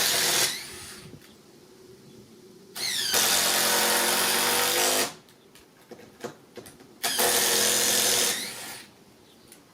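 Power drill running in three bursts of one to two seconds, each speeding up as it starts and winding down at the end, with a few small clicks in the gaps between.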